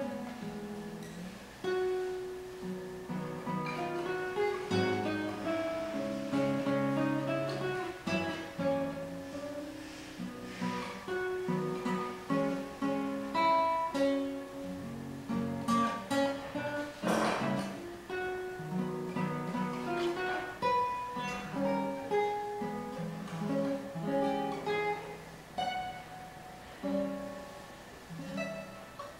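Solo guitar playing an étude: a continuous run of plucked single notes and chords, each ringing and dying away. There is a brief rasping noise a little past halfway.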